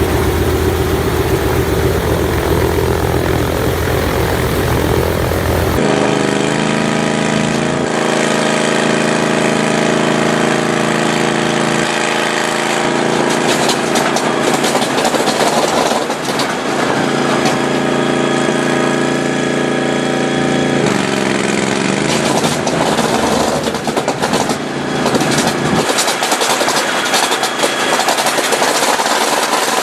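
Large old piston aircraft engines running loudly, heard as several successive clips: a deep steady drone that cuts off about six seconds in, then engines whose pitch shifts up and down, with many sharp crackles in the second half.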